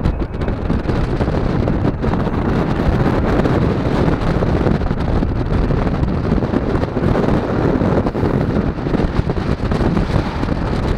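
Wind buffeting the camera's microphone: a steady, loud rushing, heaviest in the low end, with no distinct events.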